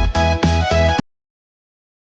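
Background music with a heavy bass beat that cuts off suddenly about a second in.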